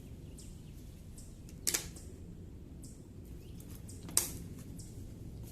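Faint, repeated strokes of a towel rubbing polishing compound over a plastic headlight lens, with two sharp clicks about two and a half seconds apart over a low steady hum.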